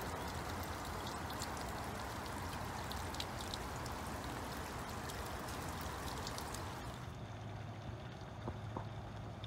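Steady rain, with water pouring and splashing down the cups of a rain chain and many small drip ticks. The high hiss thins out about seven seconds in.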